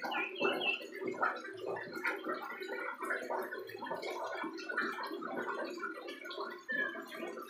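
Young common iora (cipoh) practising its song: a continuous jumbled warble of many short notes, with a few brief high whistles near the start and toward the end. This is subsong, the song of a young bird still learning.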